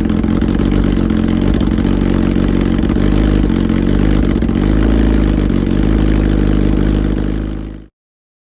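Suzuki GSX-R sportbike's inline-four running through a Racefit aftermarket exhaust on a cold idle, the pitch wavering up and down a little midway. The sound cuts off suddenly near the end.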